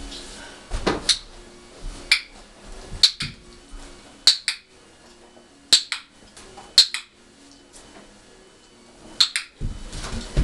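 Dog-training clicker clicking about seven times at irregular intervals, each a quick double snap, marking the dog for holding its frog position. Near the end there is a louder rustling thump as the dog shifts on the cushion.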